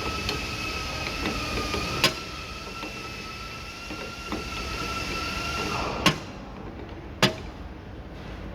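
Three sharp metal clicks of tools at work on a truck's air distributor valve, over a steady high whistle that stops about six seconds in.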